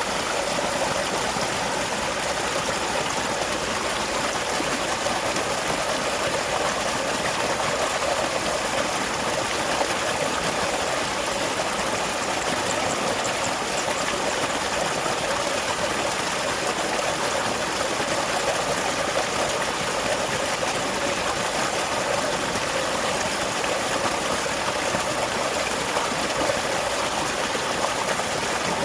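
A small waterfall: water pouring and splashing in a steady, even rush.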